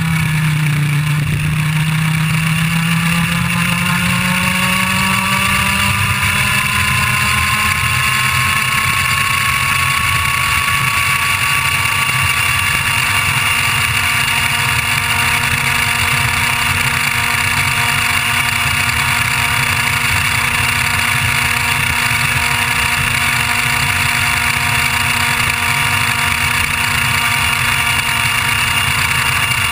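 IAME Leopard 125cc two-stroke kart engine accelerating hard out of a corner. Its pitch rises steadily over about the first ten seconds, then holds nearly level near top revs at full throttle.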